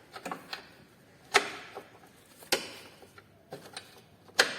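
Irregular sharp metal knocks from hand tools working on a car's front suspension: three loud strikes with a short ring, roughly a second apart, and lighter taps between.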